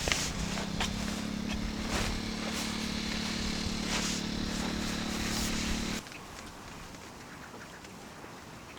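Small fishing boat's motor running steadily with a low hum, over a few footsteps; about two thirds of the way in it cuts off abruptly to quiet outdoor ambience.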